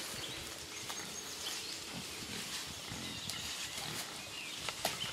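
Hogs grunting faintly, with a few sharp crunches of footsteps on dry leaves and twigs in the second half.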